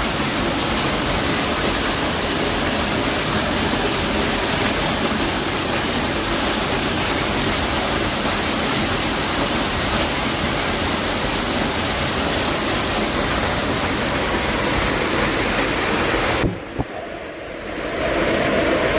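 Waterfall: the steady, loud rush of falling water. It drops away abruptly about sixteen seconds in and comes back a second or two later, deeper in tone.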